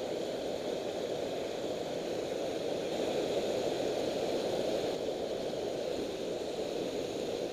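Steady rush of water pouring over a low-head dam spillway and churning at its foot.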